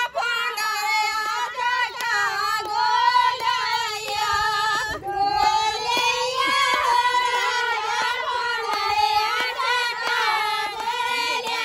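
A group of women singing a folk wedding song together in high voices, with hand claps keeping time.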